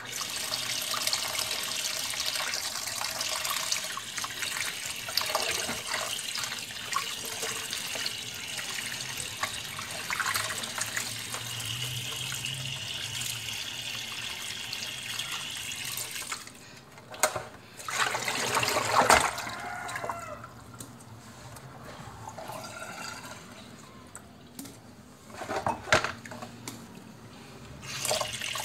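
Tap water running into a basin while muddy root tubers are scrubbed by hand in it. After about sixteen seconds the steady flow drops away, leaving a few loud splashes and sloshes as the tubers are swished about, and the running water swells again near the end.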